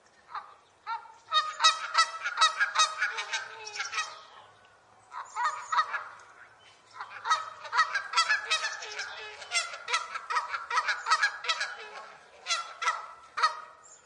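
Canada geese honking: rapid runs of short, overlapping honks from several birds, in bouts separated by brief pauses.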